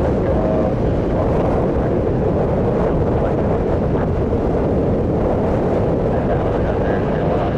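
Boeing 747-400's four jet engines at takeoff power as it departs, a steady, loud, deep rumble with some wind buffeting on the microphone.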